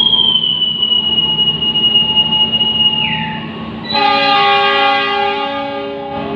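Diesel locomotive horn of an arriving passenger train, one long multi-tone blast starting about four seconds in. Before it, a long high squeal that slides down in pitch and stops about three seconds in.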